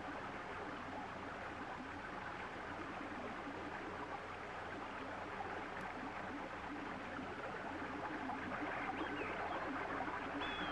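A river running steadily: an even, continuous rush of water with no distinct events.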